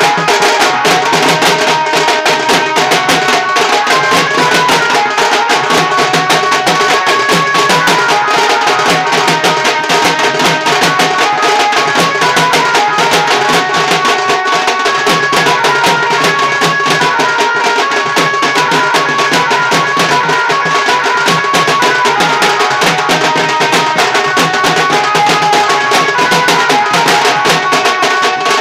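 Dhumal band: several stick-beaten side drums played together in a dense, continuous rhythm, with a melody line running over the drumming.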